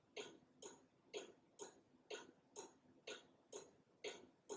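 Faint, steady ticking of a Black Forest cuckoo clock's mechanical pendulum movement, about two ticks a second in an even tick-tock.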